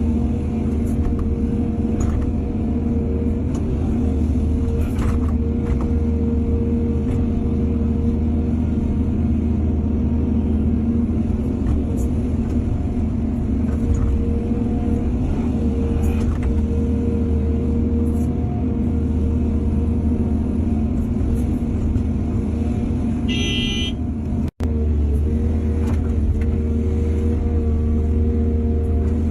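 Heavy diesel engine of an excavator working, running steadily, with a few faint knocks. A brief high squeal about 23 seconds in, and the sound cuts out for an instant just after.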